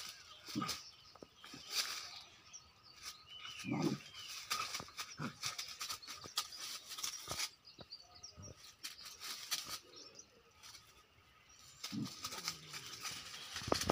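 Dry leaves and grass rustling and crackling as a young dog paws and mouths at a tabby cat during rough play, with a few short low grunts from the dog about four seconds in and again near the end. Birds chirp faintly.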